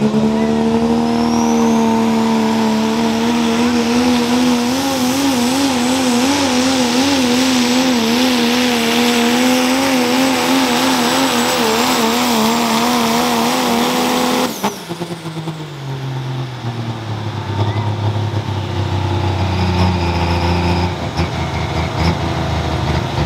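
Pro stock diesel pulling truck (second-generation Dodge Ram) running at full throttle under load, a steady high engine note with a turbo whistle that climbs over the first couple of seconds and then holds. The engine's pitch wavers for a few seconds mid-run. About fourteen and a half seconds in the sound cuts off sharply and drops to a lower engine rumble that winds down.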